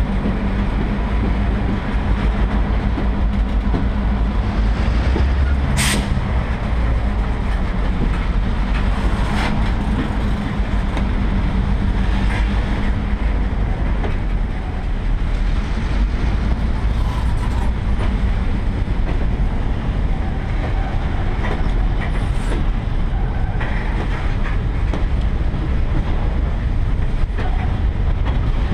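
Freight cars, covered hoppers and boxcars, rolling past close by: a steady loud rumble of wheels on rail, with one sharp knock about six seconds in and a few fainter knocks later.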